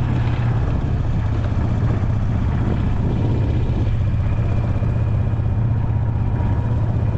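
Golf cart running steadily as it is driven across the grass, with a constant low engine drone.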